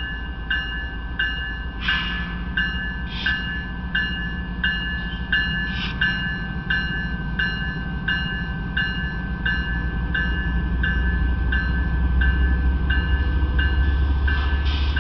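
A railroad bell dings evenly, about three strikes every two seconds, over the low rumble of a slow-moving diesel freight locomotive that grows louder in the second half. A few short hissing bursts come through.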